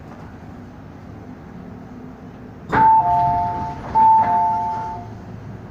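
An MTR M-Train's public-address chime sounds twice, each a high note followed by a lower one (ding-dong, ding-dong), beginning with a click from the speaker, over the steady low hum of the train running.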